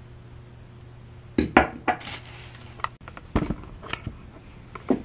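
Clicks and knocks of small hard objects being handled and set down, with a short hiss about two seconds in, over a low steady room hum.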